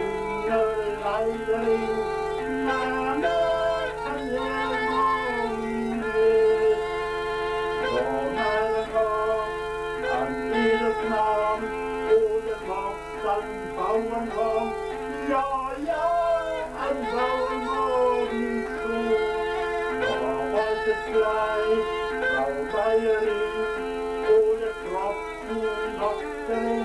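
Bagpipe playing a folk tune: a steady drone sounds under the chanter's changing melody notes.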